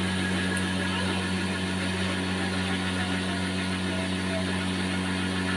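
Homemade cotton candy machine running, its spinner head turning and the motor giving a steady, even hum with a constant low tone.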